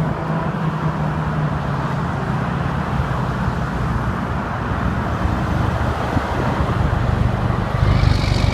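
Highway traffic with a heavy truck's engine droning low and steady; the drone drops in pitch partway through, and a rush of passing-vehicle noise swells near the end.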